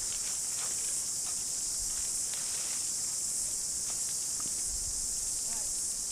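Steady, high-pitched chorus of insects buzzing, with scattered faint clicks and rustles.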